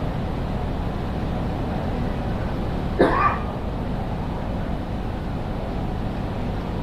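Steady low rumble of a large railway station hall's ambience, with one brief, loud, rising sound about three seconds in.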